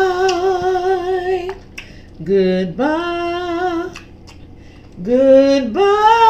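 A woman singing unaccompanied in three long, wavering held notes, each sliding up at its start, with short breaks between them. The last note is the loudest.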